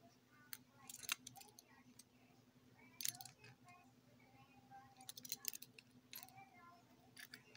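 Two pliers clicking and scraping against a brass compression fitting as it is tightened onto a braided water line: quiet, scattered metal clicks in small clusters every second or two.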